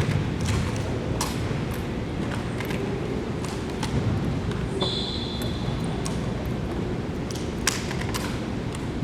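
Drill rifles being handled in a tandem rifle drill routine: scattered sharp clacks of hands slapping and catching the rifles over steady background noise. A brief high tone sounds about halfway through.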